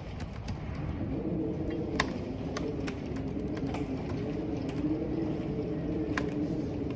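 Storm wind moaning through a corridor in a low, wavering tone over a steady rumble of wind and rain. Over it come scattered computer-keyboard key clicks, the sharpest about two seconds in and again near the end.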